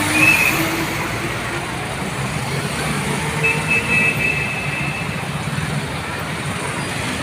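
Steady rumble of vehicle engines and street traffic, with a short high-pitched tone from about three and a half to five seconds in.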